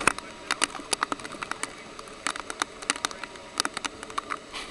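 Creek in flash flood: a steady rush of floodwater, with many irregular sharp clicks and knocks over it.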